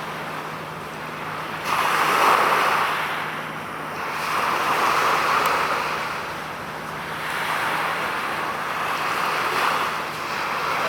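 Waves washing on a shore: a rushing noise that swells and fades every two to three seconds, over a steady low hum.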